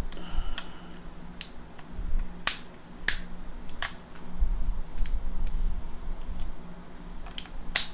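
Plastic keycaps being set onto a mechanical keyboard: a dozen or so separate sharp clicks at irregular intervals, over a faint steady low hum.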